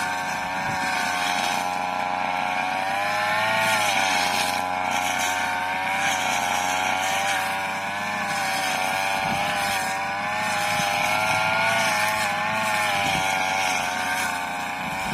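A small engine running steadily, its pitch wavering slowly up and down.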